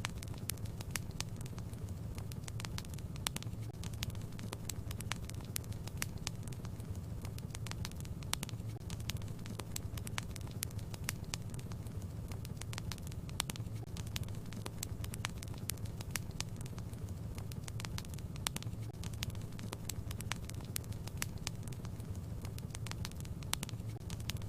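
Wood fire burning in a fireplace: frequent sharp, irregular crackles and pops over a steady low rumble.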